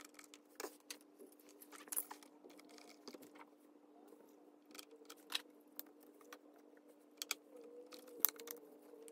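Scattered light clicks and knocks of the Bose SoundTouch 20's plastic casing parts being handled, turned over and pressed into place, over a faint steady hum.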